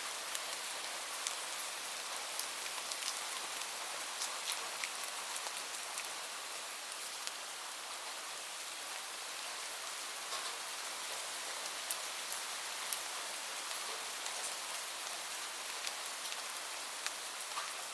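Steady rain with a constant hiss and many scattered, sharper drop ticks on a hard surface.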